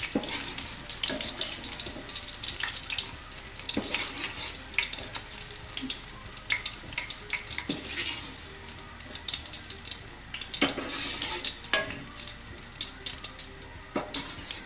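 Okra frying in hot oil in an aluminium karahi, a steady crackling sizzle. A metal spoon scrapes and knocks against the pan several times as pieces are lifted out.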